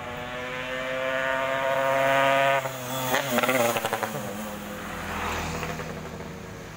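Yamaha RX-King 135 cc two-stroke single with an open bobokan exhaust, accelerating hard past: its note climbs for over two seconds, then cuts off abruptly. About a second of crackling follows, then a lower note fading as it moves away.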